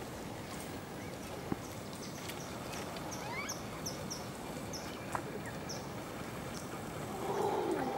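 A bird chirping: a quick run of short, high notes about midway, over steady outdoor background noise. Near the end a louder, lower sound sets in.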